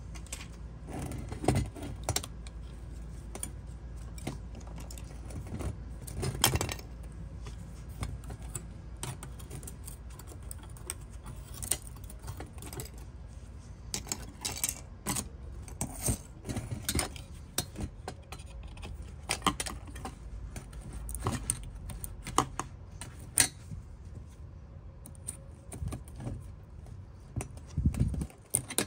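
Small diecast metal and plastic parts of a Jaguar XK8 scale model clicking, tapping and rattling as a screwdriver pries and scrapes at the body, doors and interior. The taps come at irregular intervals over a faint steady low hum.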